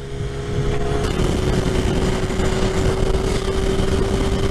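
Sport bike engine running at a steady cruise, heard from the rider's helmet with heavy wind rush. The engine note holds one pitch, dipping slightly about a second in.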